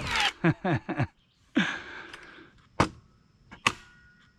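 A voice trailing off, then a short rushing burst of noise, followed by two sharp knocks about a second apart.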